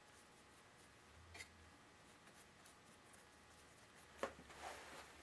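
Near silence: faint room tone, with a faint click about a second and a half in and a brief louder sound near the end.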